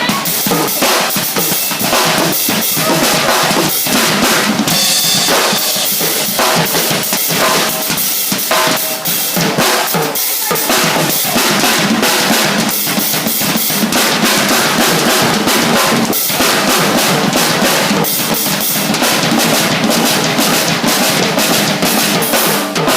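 A drumming group playing together: loud, dense drum rhythm with many strikes, running without a break.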